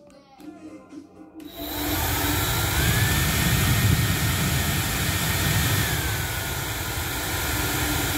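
Remington 2200W ionic hair dryer switched on about one and a half seconds in and blowing steadily, its motor whine rising in pitch shortly after and dropping back a few seconds later.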